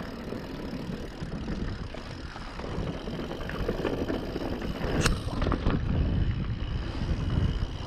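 Mountain bike rolling over a rough, stony dirt track: tyre noise on gravel and the bike rattling, with wind on the microphone. A sharp clack about five seconds in is the loudest sound.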